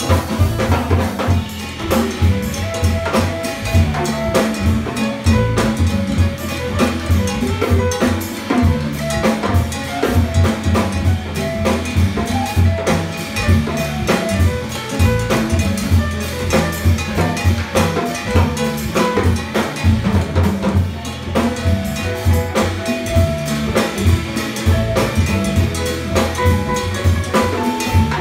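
Live jazz band playing, with the drum kit and hand percussion to the fore over upright bass, guitar and piano.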